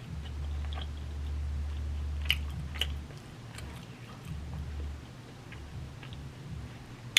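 A person chewing and biting into a Chipotle steak and chicken taco bowl close to the microphone, with scattered short wet mouth clicks. A low hum sits under the first three seconds and comes back briefly a little later.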